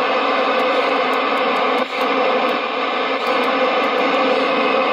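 Amstrad CB 901 27 MHz CB radio giving out steady, loud static from its speaker as its channel selector is turned from channel to channel, with a brief dip about two seconds in.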